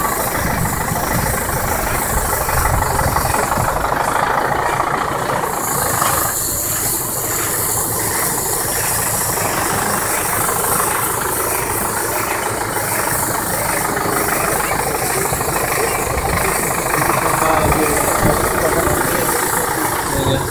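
Zetor tractor engine running steadily, powering a McHale bale wrapper as it wraps a round bale in plastic film.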